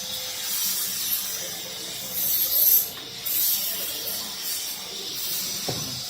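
Steady high-pitched hiss, with a short louder surge of hiss a little over two seconds in.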